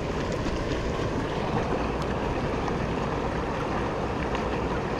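Shallow river current rushing steadily around a wading angler's legs, an even rush of flowing water.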